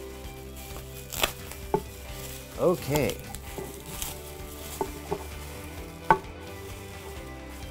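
Plastic bubble-wrap packaging bag crinkling and crackling as it is handled and pulled open, with a few sharper crackles, the loudest about six seconds in.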